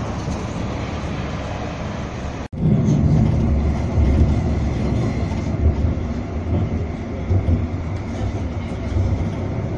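Steady city street traffic, then, after an abrupt cut about two and a half seconds in, the louder low rumble of a moving tram heard from on board, running along the track.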